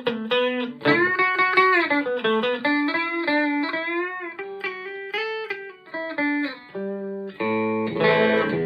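Electric guitar played through a Marshall MG50 FX amp: a single-note lead line with string bends and vibrato, changing to a few fuller chords near the end.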